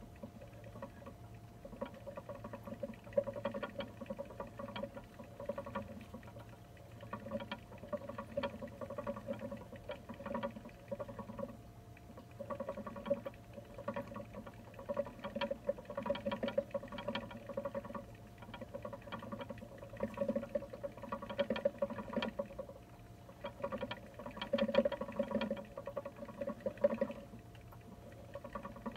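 A noisy hamster exercise wheel rattling with quick repeated ticks as a young hamster runs in it. It comes in runs of a few seconds with short lulls between them.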